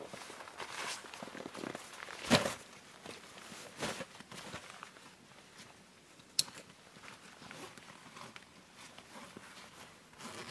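Footsteps in snow and the rustle of a backpack and winter clothing as the pack is taken off and set down, with a heavy thump about two seconds in and a sharp click about six seconds in.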